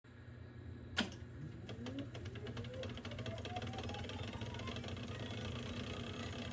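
Otari MX5050B2 reel-to-reel tape deck's transport: a sharp click about a second in, then a rising whine as the reels spin up, settling into a steady mechanical whir with a fast, even ticking over a low hum.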